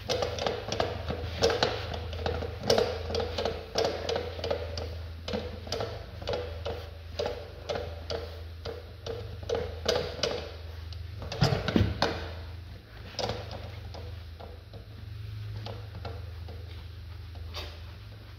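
A rag rubbed back and forth by hand on a truck wheel rim while polishing: a rhythmic scrubbing at about two strokes a second. It stops about twelve seconds in, leaving a steady low hum.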